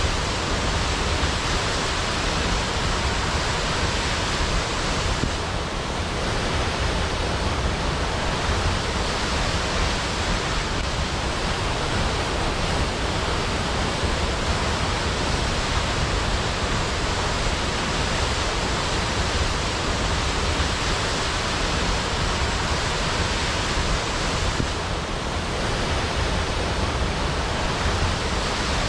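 Waterfall: a steady, even rush of falling water with no breaks, dipping slightly for a moment about five seconds in and again near the end.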